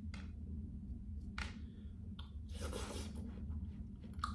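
Knife work on a ripe watermelon: a few small sharp clicks and, about two and a half seconds in, a short soft wet crunching of watermelon flesh, over a steady low hum.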